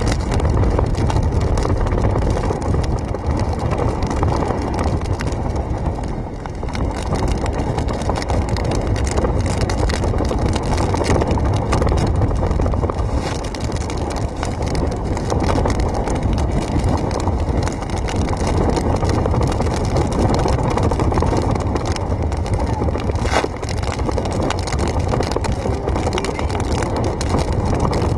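Hurricane-force wind buffeting the microphone in a steady, heavy rumble, mixed with waves breaking over a seawall.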